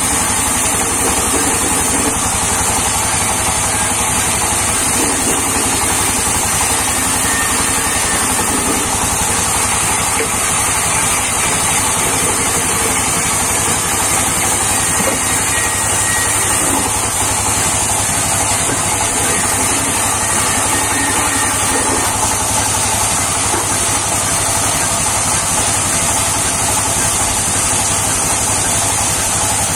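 Large vertical band saw running steadily as a log is fed through its blade and sawn into planks, a loud unbroken machine sound with no pauses.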